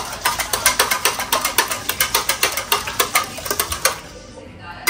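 Wire whisk beating raw eggs in a bowl: quick, even clicking strokes of the metal whisk against the bowl, several a second. The strokes pause briefly near the end, then start again.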